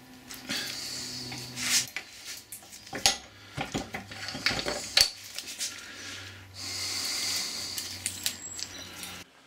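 Metal clinks and knocks from handling a cast pillow-block bearing housing on a lathe drive shaft with its stepped cone pulley, with two stretches of rubbing as the parts are worked together and turned. The clicks cluster in the middle.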